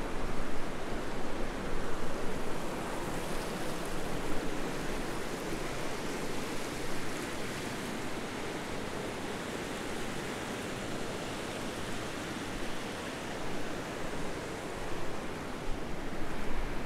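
Steady rush of a small river tumbling over a low concrete weir.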